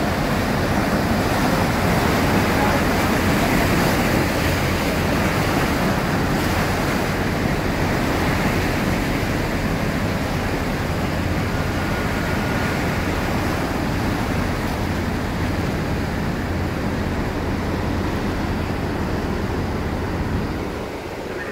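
Container ship's propeller wash churning and foaming: a loud, steady rush of turbulent water with a low hum underneath.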